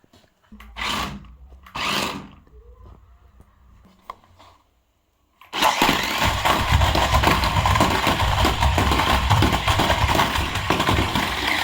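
Battery-powered toy remote-control stunt car running on the floor: small electric motors whirring and the plastic wheels and body rattling. A faint hum with two short swells comes first, then after a brief gap about halfway through, the loud, steady motor-and-rattle noise starts abruptly.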